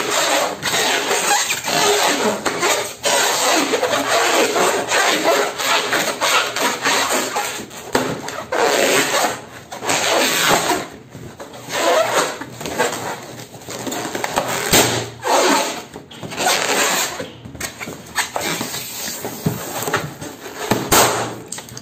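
Hands rubbing and squeezing a large inflated latex balloon, making a loud squeaky rubbing of skin on latex. It runs almost unbroken at first, then comes in shorter bouts from about halfway on.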